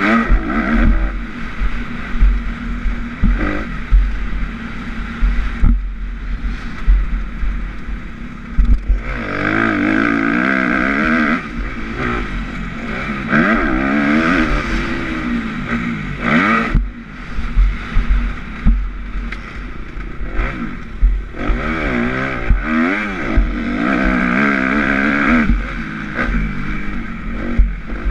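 Kawasaki KX250F four-stroke single-cylinder engine, heard from on board the bike, revving up through the gears and dropping back off the throttle again and again, the pitch climbing and falling. A heavy low rumble and scattered knocks run beneath it.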